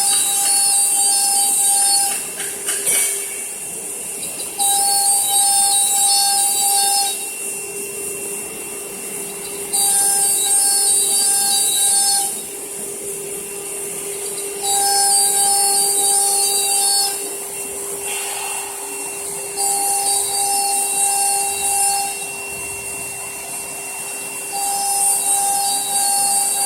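A wood CNC router running: the spindle gives a steady whine, and a loud, hissy cutting sound returns about every five seconds, each time lasting about two and a half seconds, as the tool makes repeated passes through the wood.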